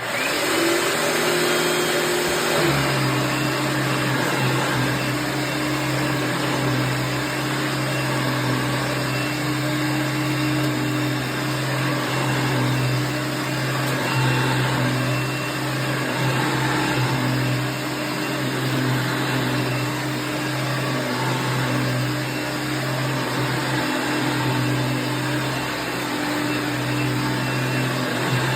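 A 1994 Royal-made Dirt Devil Plus soft-bag upright vacuum cleaner switched on: its motor spins up over the first two or three seconds, then runs steadily and pretty loud, a constant hum over a rush of air.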